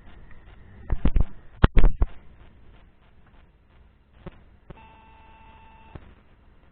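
Several loud knocks and clunks about a second in, then a steady electronic beep tone lasting just over a second that ends with a click.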